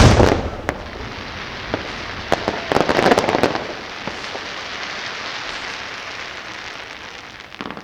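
Fireworks: a loud shell burst right at the start, then several seconds of dense crackling that swells with a cluster of sharp cracks about three seconds in and fades away near the end.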